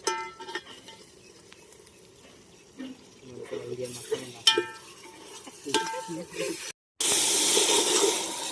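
Metal utensil clinking against a cooking pot three times, each with a short ring. From about seven seconds in, loud steady sizzling of food frying in the pot.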